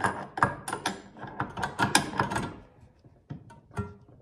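A hand wrench tightening the blade arbor bolt on a DeWalt circular saw with the spindle lock engaged: a quick run of metal clicks and clatter for about two and a half seconds, then a couple of single clicks near the end. This is the final snugging of the bolt so the new blade has no wobble.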